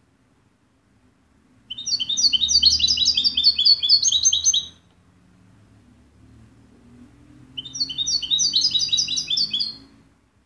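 European goldfinch singing: two bursts of rapid, high twittering, each about three seconds long, the first starting about two seconds in and the second about seven and a half seconds in.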